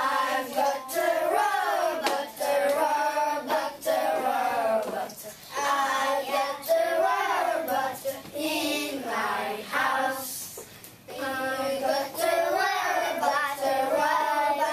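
A group of young children singing a song together in phrases, with a short break between phrases twice, and some hand clapping along.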